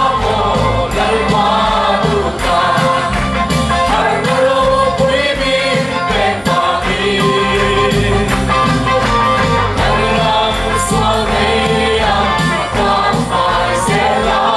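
Gospel song sung by a group of voices with a band, over a steady drum beat.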